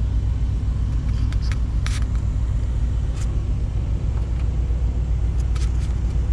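Steady low rumble of an idling diesel truck engine heard inside the sleeper cab, with a few faint clicks.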